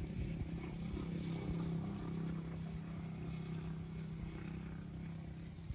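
Steady hum of an engine running at a constant pitch, easing off slightly near the end.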